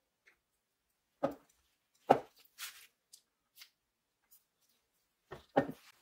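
Scattered sharp knocks and clicks of a metal hand drill gear wheel being handled on a wooden workbench, the loudest about two seconds in, with a double knock near the end.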